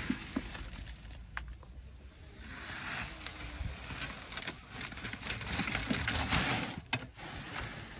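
Wet concrete sliding and scraping out of a tipped steel wheelbarrow onto plastic sheeting, with the plastic crinkling. The rustling swells for a few seconds, with a sharp knock near the end.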